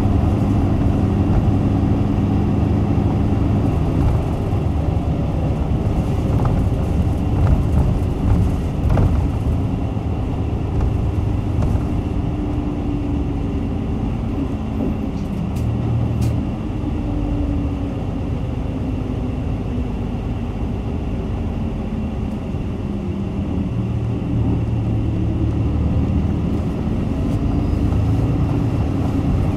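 Diesel city route bus of type PKG-RA274KAN heard from inside while driving: the engine and drivetrain drone steadily, their pitch and loudness shifting as the bus speeds up and eases off, with a few light rattles and clicks.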